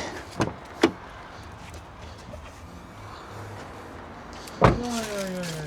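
Plastic trim clips of a pickup's lower pillar cover snapping loose as the panel is pried off: two sharp clicks near the start, then a louder knock near the end with a short falling tone after it.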